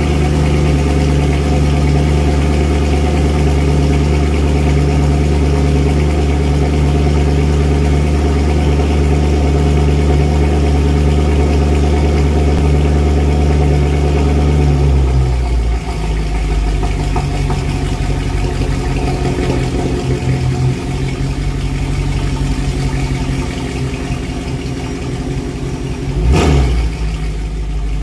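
Mercedes C63 AMG 507's 6.2-litre V8, fitted with Akrapovic downpipes and the stock resonator and muffler, idling after a cold start. The fast cold idle steps down to a lower, uneven idle about halfway through, and one short rev rises and falls near the end.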